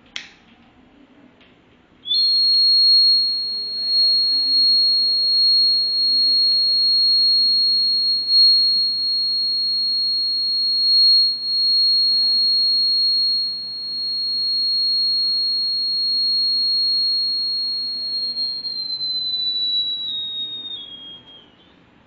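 The buzzer of a homemade thermistor fire alarm circuit sounds one steady high-pitched tone, set off by heat reaching the thermistor. It starts about two seconds in, holds for some fifteen seconds, then sags slightly in pitch and dies away near the end.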